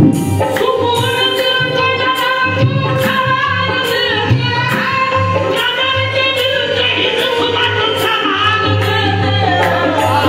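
Qawwali sung live through a microphone: a lead voice in long, bending melodic lines over a harmonium's held notes, with a steady beat of hand percussion.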